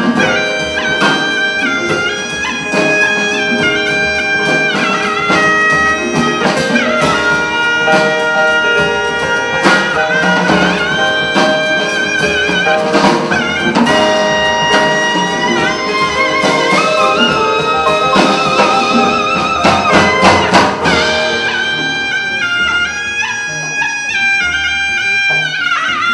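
Taepyeongso, the Korean double-reed shawm, playing a loud, bright melody with wavering held notes and slides. It plays over an accompanying band with double bass and percussion.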